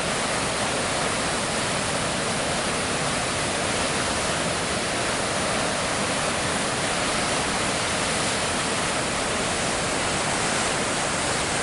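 A steady, even rushing hiss that holds level throughout without a break or change.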